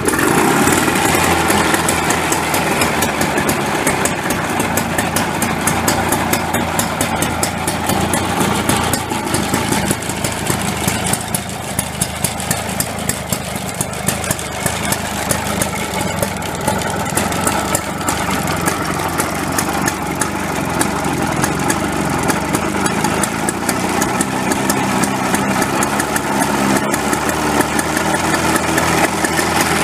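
Allen Scythe's Villiers 11C single-cylinder two-stroke engine starting from cold: it fires up suddenly at the very start and keeps running with a rapid, even beat.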